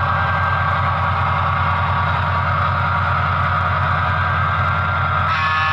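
HO-scale Broadway Limited EMD F7 diesel locomotives' onboard sound playing the prime mover running steadily at a constant throttle, with a pulsing low rumble from the Rolling Thunder bass. About five seconds in, a brighter, higher layer joins the engine sound.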